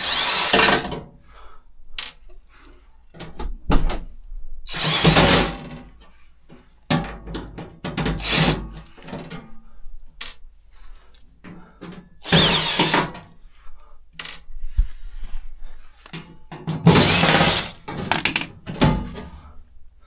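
Cordless drill-driver backing out the screws of a washing machine's rear panel, run in four short bursts of about a second each, with clicks and clatter of handling between the runs.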